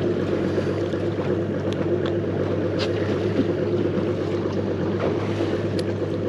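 A steady low mechanical hum aboard a fishing boat, with wind and water noise. A few faint metallic clicks come as split-ring pliers work the slow-pitch jig's ring and assist hooks.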